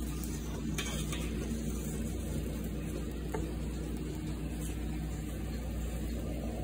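Thick grits being stirred and lifted in a pot with a slotted spatula, with faint sizzling from sausage links frying in the pan beside it over a low steady hum.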